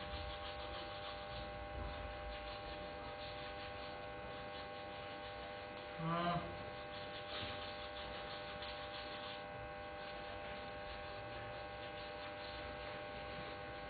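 Steady electrical hum made of several fixed tones, with one short voice-like sound about six seconds in.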